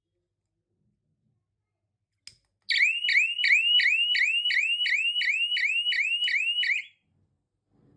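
A homemade fire alarm circuit's siren sounding: a repeating rising electronic whoop, about three a second. It comes in after a short click about two and a half seconds in and stops abruptly about a second before the end.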